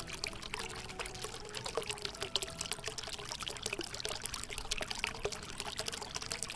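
Water being poured from a small cup into a small plastic slime-kit shaker pot, filling it to the fill line: a steady trickle with many small splashes.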